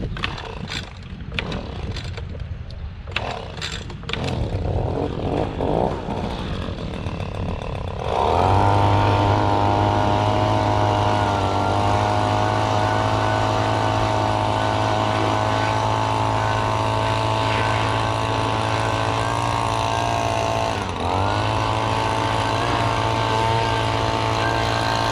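Gas leaf blower: a few knocks and handling clatter, then about eight seconds in its two-stroke engine starts and runs steadily at high throttle. Near the end the throttle dips briefly and comes straight back up.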